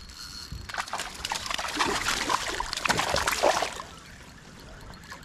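Water splashing and sloshing for about three seconds, starting about a second in, then dying down.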